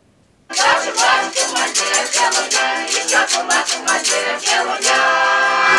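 Finno-Ugric folk song: women's voices singing to a button accordion, over a sharp, steady rhythmic beat, starting about half a second in.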